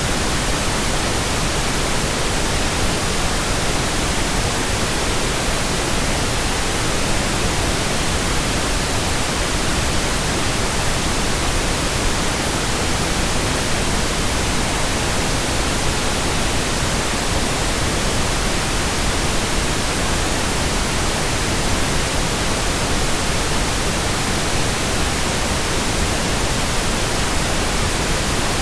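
Steady white noise: an even, unchanging hiss spread from low to high pitches, with no breaks or events.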